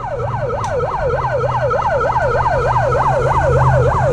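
Electronic yelp siren from a handheld megaphone, its pitch sweeping up and down about five times a second, with a steady low hum underneath.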